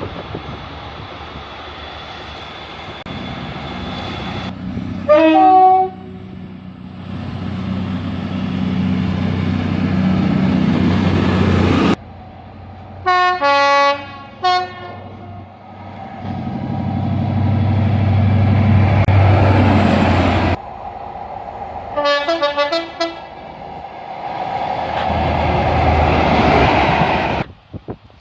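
Passing trains with a steady rumble that swells and then cuts off abruptly several times, and a train horn sounding in short blasts: one about five seconds in, a few more around thirteen to fifteen seconds, and two around twenty-two seconds.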